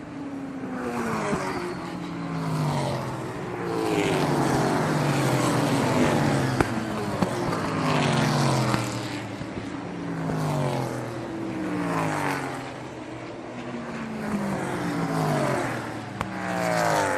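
Sports car engines passing at speed one after another, the engine note swelling and falling in pitch as each goes by, about every couple of seconds.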